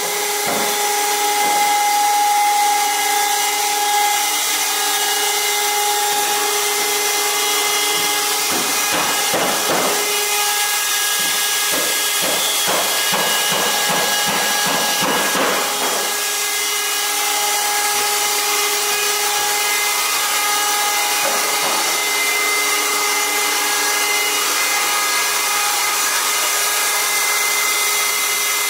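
Vacuum transformer oil purifier running, its vacuum pump and oil pump motors giving a steady mechanical whine in several pitches over a hiss. A few brief rattling knocks come about a third of the way in and again about halfway.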